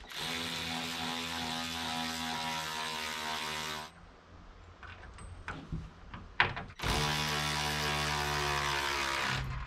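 Ryobi cordless power ratchet running at a steady pitch twice, for about four seconds and then about three, as it drives bolts into a timber beam. Between the two runs come small clicks and knocks of a bolt being set by hand.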